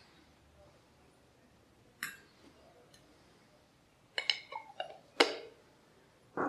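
Kitchen utensils clinking and knocking as ingredients are handled: a single click about two seconds in, then a quick run of light ringing clinks and one louder knock near the end.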